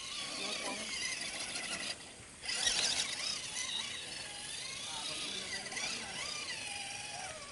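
Electric motor and gear drive of a radio-controlled scale rock crawler whining as it climbs a boulder, the pitch rising and falling with the throttle. There is a short lull about two seconds in, followed by a louder burst of noise.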